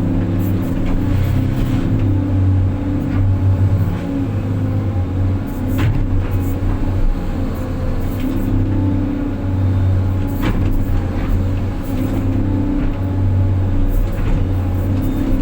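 Excavator's diesel engine running steadily, its pitch shifting up and down as the load changes, with a couple of sharp knocks.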